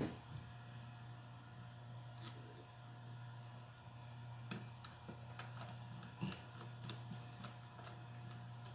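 Scattered light clicks and taps as a belt clip and its screw are handled and fitted to a Makita cordless drill driver, over a steady low hum.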